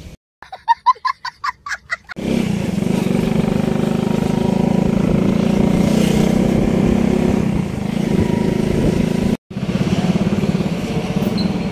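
Motor vehicle engine running close by with a steady low drone, broken by a brief cut about nine seconds in, after which an engine chugs with quick regular pulses. In the first two seconds there is a quick series of short pitched tones.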